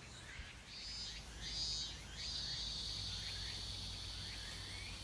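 Outdoor animal sounds: faint short chirps, and a high, shrill insect-like drone that starts in two short bursts about a second in, then holds steady.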